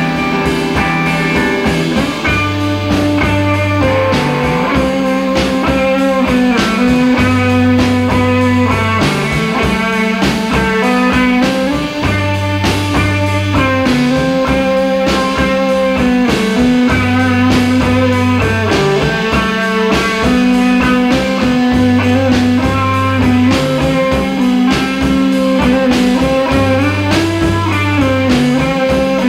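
A three-piece rock band playing live: electric guitar over a repeating bass line and a steady drum beat.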